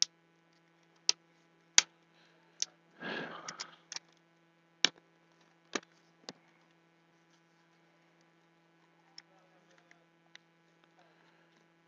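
Clear plastic case of a Coollaboratory Liquid Ultra kit being opened and handled: a string of sharp plastic clicks, with a brief rustle about three seconds in, and a few faint ticks later. A steady electrical hum runs underneath.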